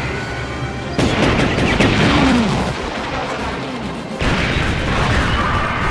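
Action-film sound effects of missiles streaking in and exploding, with two sudden loud bursts, one about a second in and one just past four seconds, the first trailed by falling whistling sounds, over background music.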